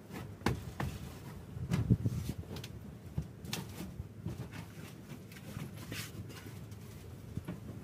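Knocks, bumps and rustling from a person climbing onto a pop-top caravan's cushioned bed, irregular throughout, with the loudest bump about two seconds in.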